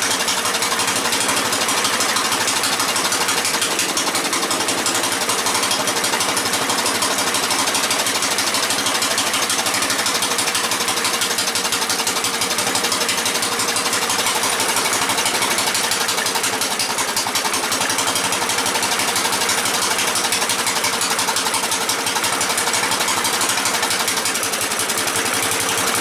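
Cast-iron Briggs & Stratton single-cylinder engine running steadily at speed, belt-driving its starter-generator. Its muffler is in need of repair, and its carburettor is worn out and due for a rebuild.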